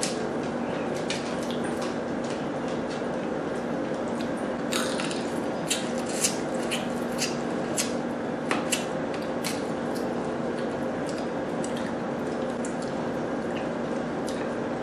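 Close-up wet eating sounds: cooked lobster shell being pulled apart by hand and the meat chewed, with scattered irregular clicks and squishes over a steady low hum.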